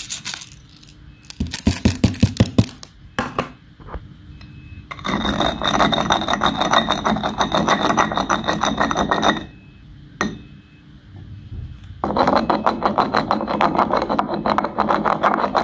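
Stone pestle grinding raw rice grains in a stone mortar (cobek): fast, gritty scraping strokes in two long spells, the second starting about twelve seconds in. A short clatter of knocks comes about two seconds in.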